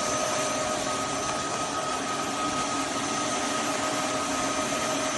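Roborock F25 RT cordless wet-dry vacuum-mop running steadily in max mode: an even rush of suction with a high, steady motor whine.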